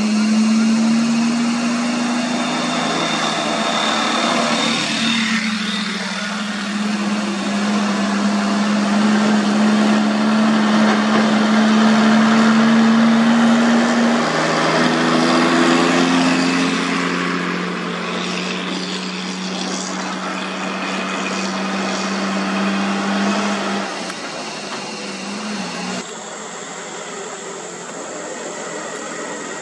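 Diesel engines of Hino container trucks working up a steep, rough grade: a steady, loud engine drone whose pitch shifts a couple of times, over road and traffic noise.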